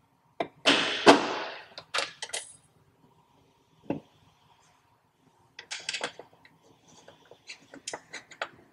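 Small metal hardware clinking and clattering by hand at a truck's hood hinge as a hood-mount bracket, spacer and nuts are fitted onto the hinge studs. There is a louder metallic clatter about a second in, then a run of small clicks near the end.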